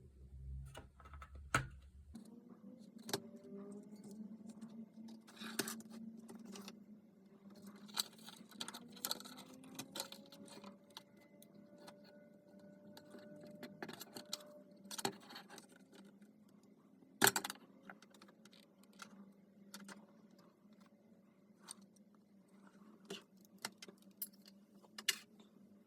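Makita DC18RC battery charger running with a steady low hum that starts about two seconds in, its pitch wavering slightly, amid repeated clicks and clatter of plastic and metal parts being handled.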